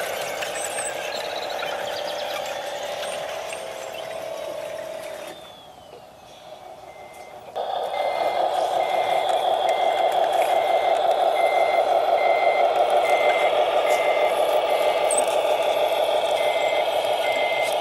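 Electric drive motor and gearbox of a Tamiya Scania R730 radio-controlled truck whining as it drives, winding down with a falling whine about five seconds in. About two seconds later it starts again, louder, while a reversing beeper sounds steadily about once a second.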